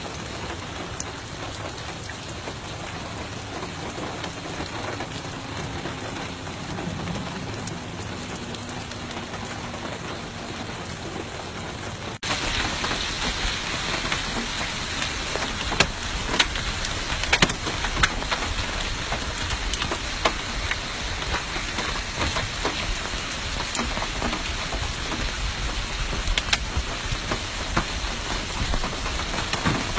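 Heavy rain with hail: a steady hiss of rain falling. About twelve seconds in it cuts to a louder downpour, with many sharp clicks from hailstones striking.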